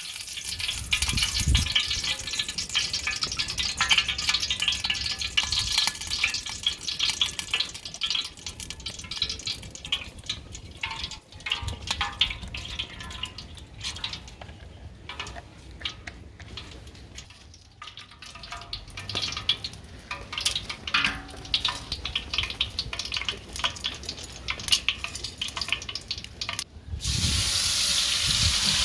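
Oil, spices and chopped vegetables sizzling and crackling as they fry in a large pot over a wood fire, with stirring. About two seconds before the end the sound turns into a denser, steadier hiss.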